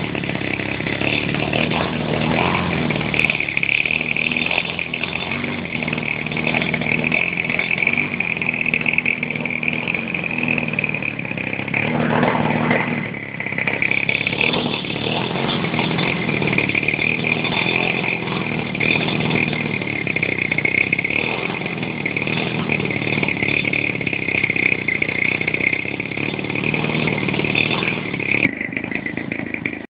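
Fuji 50cc two-stroke petrol engine of a large RC model airplane running steadily at speed, dipping briefly about thirteen seconds in.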